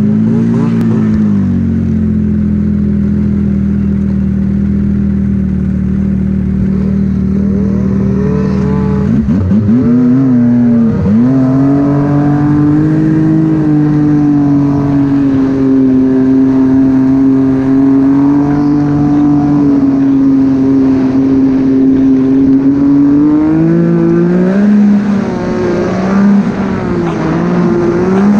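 Snowmobile engine running under throttle, holding a steady pitch, then the revs drop and come back up about nine to eleven seconds in. It settles at a higher steady pitch before the revs rise and fall again near the end.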